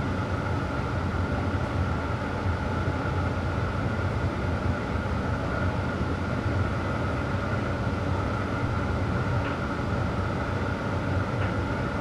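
Electrolux EW7H578S heat-pump tumble dryer running with laundry tumbling in its drum: a steady hum with a thin steady high tone over it, late in the drying program with minutes to go.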